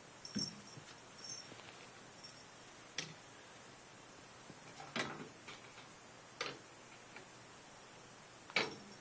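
Scattered soft taps and thumps, about six at irregular intervals, as 4-week-old kittens bat and grapple a tennis ball on carpet.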